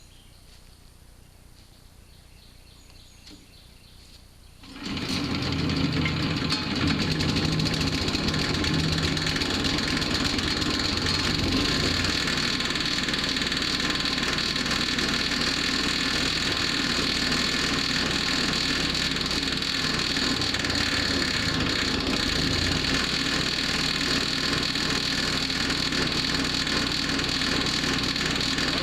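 Gas engine of a Powerhorse chipper shredder starting up about five seconds in, then running steadily. This is its first run after being filled with oil and fuel.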